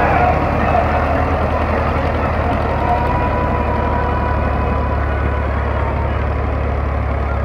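Belarus MTZ tractor's diesel engine running steadily under load as the tractor pushes mud with its front blade, a steady low drone that gets a little quieter as the tractor moves away.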